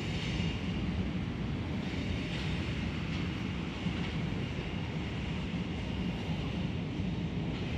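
Steady outdoor background noise: a low rumble with a fainter hiss above it and no distinct events, typical of wind on the microphone mixed with distant traffic.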